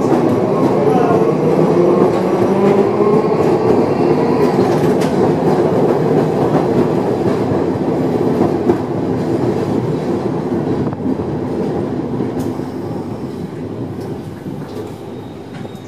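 A 1928 Milan-built 'Peter Witt' streetcar heard from inside while it runs along the track: a steady running noise of wheels on rails and the rattling wooden car body, loudest in the first half and easing off toward the end.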